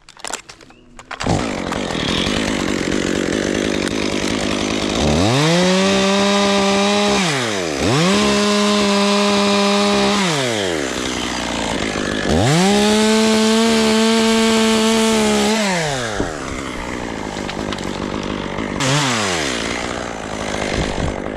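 Two-stroke gas chainsaw starting about a second in and idling, then revved to full throttle three times for two to three seconds each, with a short blip of throttle near the end.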